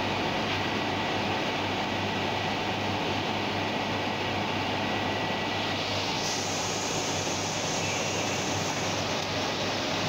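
Heidelberg GTO four-colour offset printing press running steadily, a dense mechanical clatter over a steady hum, with a brighter hiss coming in about six seconds in.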